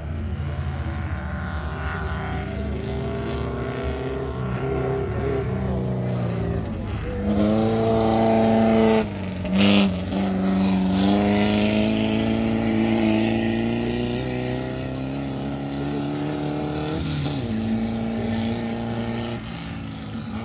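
Volkswagen race car engines running hard on a dirt track, the engine note climbing and getting louder about seven seconds in. It breaks off for a moment, with a short loud rush of noise, then the engine note slowly falls away as the car moves off.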